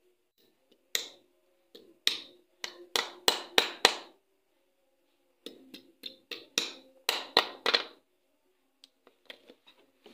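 Repeated sharp taps of a hand tool on the parts of a washing machine gearbox pulley being fitted. They come in two runs of about seven or eight quick knocks each, with a pause between.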